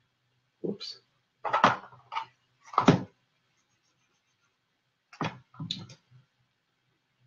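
Several knocks and clatters in two groups, from about one to three seconds in and again around five to six seconds, following a spoken "whoops".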